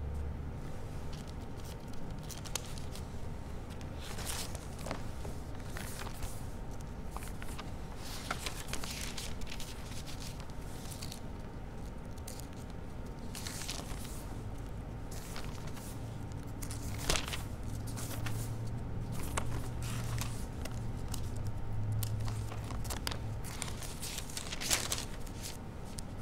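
Quiet room tone with a steady low hum, broken by scattered soft clicks and paper rustles, as of pages being handled at a wooden lectern. Two sharper clicks stand out, one about two-thirds of the way through and one near the end.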